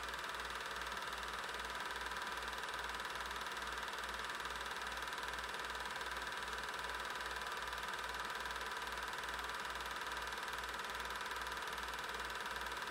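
8mm film projector running steadily: a constant mechanical hum and hiss with a low, even pulsing of about three beats a second.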